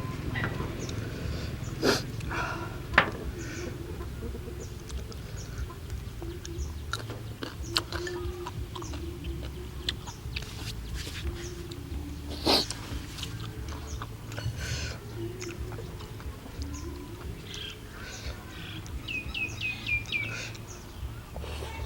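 Noodles being eaten: chewing and slurping, with short sharp clicks of utensils against a bowl. A few quick bird chirps come near the end.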